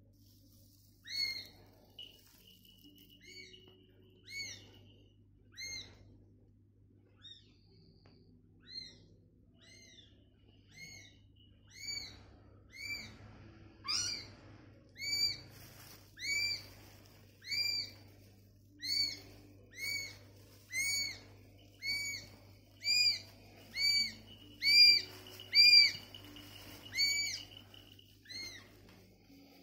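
A week-old kitten mewing: short, high-pitched cries that rise and fall in pitch, about one a second. They are sparse at first, then grow louder and more regular through the second half.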